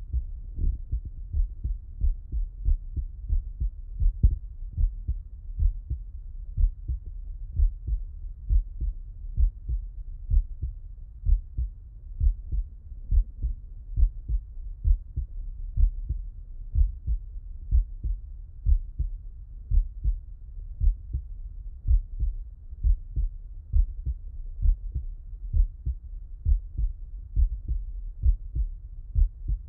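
A man's heart sounds heard through a Littmann stethoscope while he lies on his left side: low, regular heartbeat thumps in a steady rhythm.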